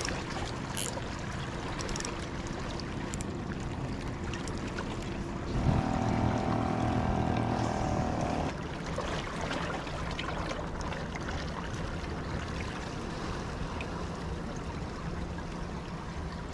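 Water lapping and splashing against breakwater rocks, with wind noise. About five and a half seconds in, a louder steady mechanical hum with several tones sets in for about three seconds, then stops.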